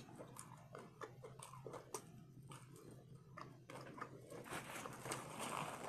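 Close-up chewing of a bite of taco in a hard-fried corn shell: faint, irregular crunchy clicks, a little fuller near the end.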